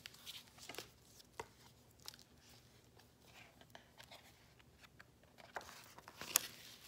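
Faint handling noises of a picture book being moved about and its cover opened: scattered light taps and paper rustles, with a sharper knock about six seconds in.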